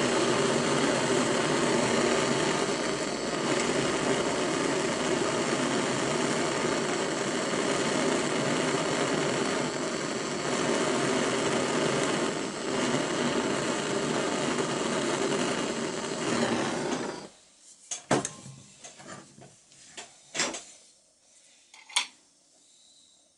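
Hand-held gas torch burning with a steady hiss, then shut off abruptly about three quarters of the way through. A few sharp clicks follow.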